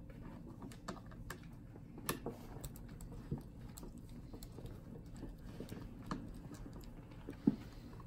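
Light, scattered clicks and taps of a small pocket-knife tool and fingers on a laptop's plastic keyboard and keyboard deck while a keyboard screw is backed out and the keyboard is worked loose, with one sharper click near the end.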